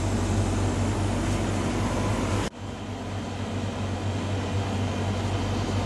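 Steady hiss of a lit butane burner's blue flame under a syphon coffee maker's glass globe, with a low hum beneath it. The level drops suddenly about two and a half seconds in, then carries on steadily at the lower level.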